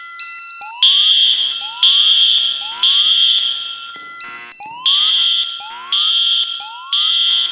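Several fire alarm signals sounding at once. Loud, high-pitched horn blasts come in groups of three about a second apart, twice, in a three-pulse evacuation pattern. Under them run a rising whoop tone that repeats about once a second and a steady tone.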